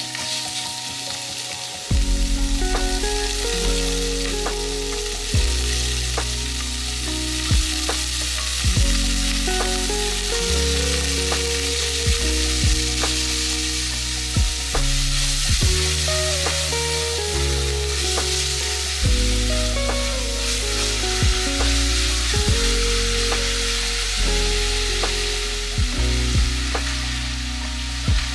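Food sizzling steadily as it fries in a pan and is stirred, under background music with a prominent bass line.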